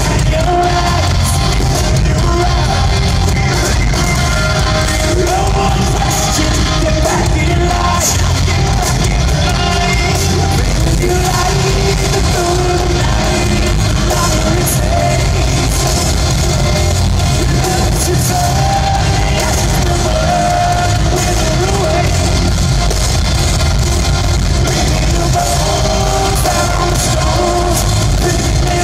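Heavy rock band playing live in an arena: distorted electric guitars over bass and pounding drums, at a steady loud level and heard through the hall's reverberation.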